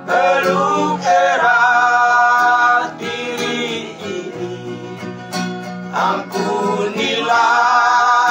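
Three men's voices singing an Indonesian Christian worship song together, holding long notes, over a guitar accompaniment.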